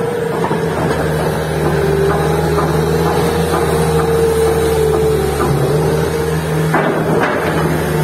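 Bobcat S250 skid-steer loader's diesel engine running steadily as the loader drives forward with logs in its grapple, the pitch dipping briefly a little past the middle. A couple of knocks near the end.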